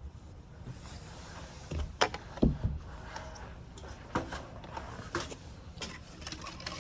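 A handful of separate knocks and clunks from hands-on work with hardware and tools, the loudest pair about two seconds in, over a low steady hum.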